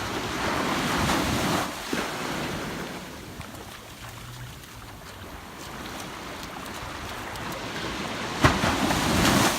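Ocean surf washing onto a beach: one wave rushes in at the start and another swells near the end, with wind buffeting the microphone. A short knock about eight and a half seconds in.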